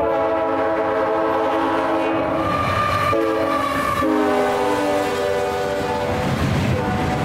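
Union Pacific GE ET44AC diesel locomotive's air horn sounding over the rumble of the passing train. A long blast, a short break a little after three seconds, then more blasts whose pitch drops as the locomotive goes by about four seconds in. The horn fades near the end, leaving the rolling cars.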